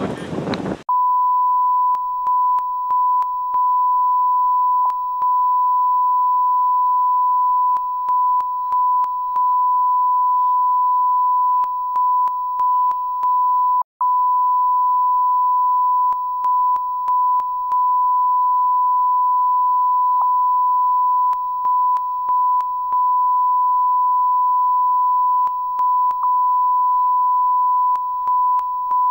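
Steady electronic line-up tone at one unchanging pitch, broken by short gaps that come mostly in groups of three, and cutting out completely for an instant about 14 seconds in.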